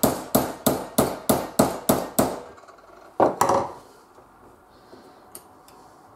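Hammer blows on a bent metal strip clamped in a bench vise, about three a second for some two seconds, shaping the bend to a curve. A single louder knock follows about a second later, then a few faint clicks.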